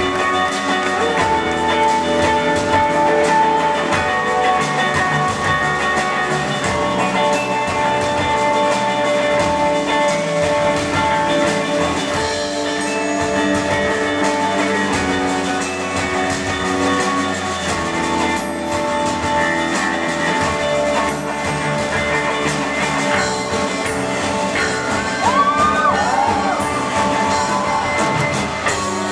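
Rock band playing live, heard from the audience: electric guitars, bass, drums and keyboard in a full, steady instrumental passage, with a few gliding high tones near the end.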